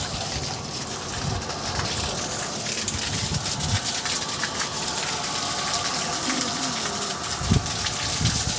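Water gushing in a steady rush, with a few low bumps, the strongest one near the end.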